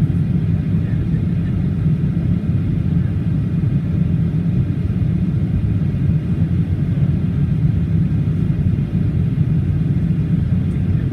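Steady low cabin drone of a Boeing 737-800 in flight, from its CFM56-7B engines and the airflow over the fuselage, heard from a window seat during the descent towards landing.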